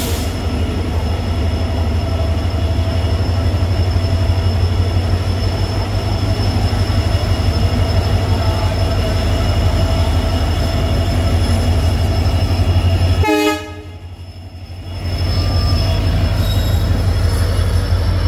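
WDG4 diesel locomotive's 16-cylinder two-stroke turbocharged engine running loud as the locomotive moves slowly past, a heavy deep rumble with steady high whining tones over it. About 13 s in the sound drops off abruptly, stays quieter for a couple of seconds, then the engine sound swells back.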